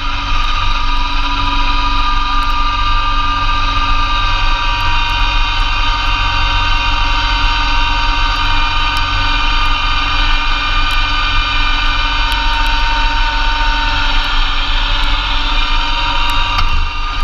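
Massey Ferguson GC2300 compact tractor's diesel engine running steadily under load, driving a Blizzard B48 PTO snowblower, with a steady whine over the engine's rumble.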